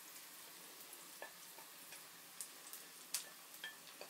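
Shungiku pancake batter going into hot oil in a frying pan: a faint steady sizzle with scattered sharp clicks and crackles, the loudest a little after three seconds in.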